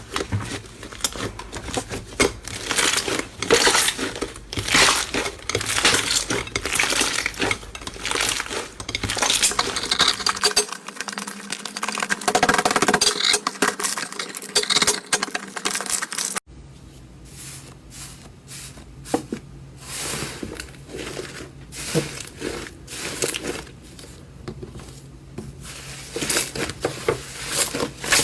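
Slime being squeezed and kneaded by hand, giving a rapid stream of sticky clicks and pops. About 16 seconds in the sound changes abruptly to quieter, sparser clicks.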